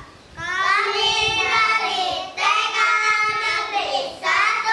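Kindergarten children's choir singing together, in phrases with short breaks about halfway through and near the end.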